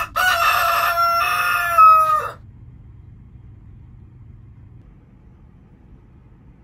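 Rooster crowing once, a cock-a-doodle-doo about two seconds long that drops in pitch at its end, used as a morning sound effect.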